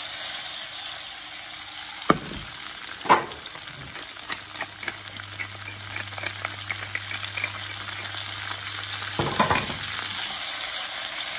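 Asparagus, carrots and snow peas sizzling as they sauté in a frying pan. There are sharp knocks about two and three seconds in and again near the end, and a run of small clicks in the middle as a pepper mill grinds over the pan.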